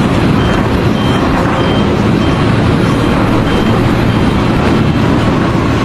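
Heavy vehicle engine running loud and steady, with a faint reversing alarm beeping at an even pace, a little under twice a second.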